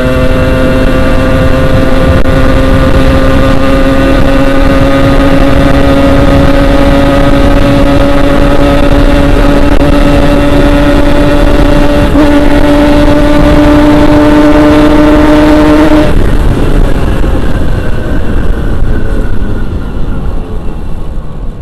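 Yamaha RX-King 135cc two-stroke single-cylinder engine held at high revs under full throttle, its pitch climbing slowly. About three-quarters of the way through the throttle is shut and the engine note drops away as the bike coasts.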